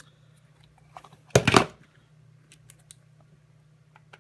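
Small clicks and handling noise as a driver bit is changed in a cordless drill/driver's chuck, with one short, loud clatter about a second and a half in.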